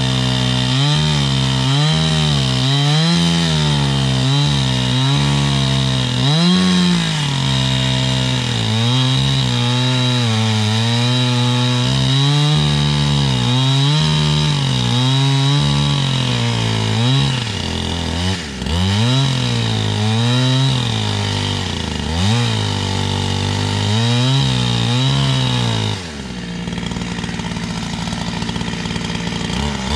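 Chainsaw cutting wood, its pitch repeatedly dipping and recovering as the chain loads up in the cut. About four seconds before the end it eases to a lower, steadier sound, then rises again.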